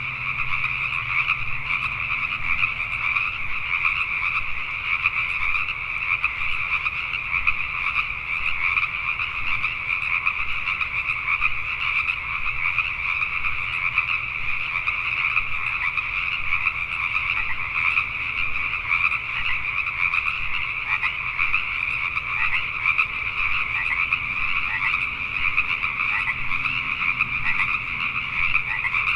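A dense chorus of many Pacific tree frogs (Pacific chorus frogs) calling at once, their overlapping croaks merging into one continuous, steady sound.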